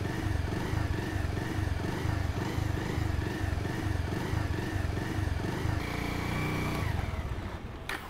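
Motorcycle engine running with a regular pulsing about twice a second, then winding down and dying away near the end as the bike stalls.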